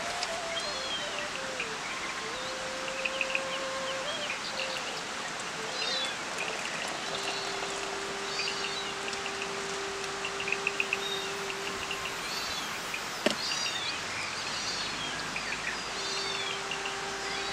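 Outdoor ambience with small birds chirping and calling repeatedly over a steady background hiss. A faint steady whistling tone comes and goes, and there is a single sharp knock about two-thirds of the way through.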